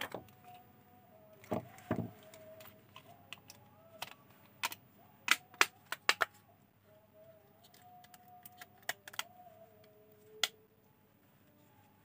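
Sharp plastic clicks and snaps of a keypad phone's casing being handled and clipped back together, coming one after another at uneven spacing, with the loudest cluster around the middle.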